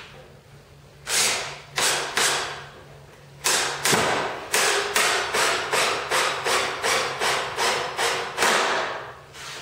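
Cordless drill/driver driving a screw down through an MDF fence into the sled base. It starts with a few short bursts, then settles into an even run of knocks about three a second that stops near the end. The screw is lifting the fence instead of drawing it down flush.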